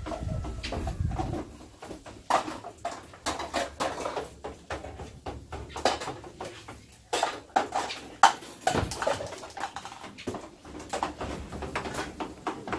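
Irregular clatter and knocks of cookware and kitchen utensils, with a wooden spoon working in a frying pan on the stove.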